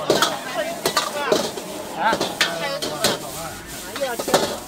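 Metal ladle scraping and clanking against a wok in repeated irregular strokes as egg fried rice is stir-fried, with the rice sizzling.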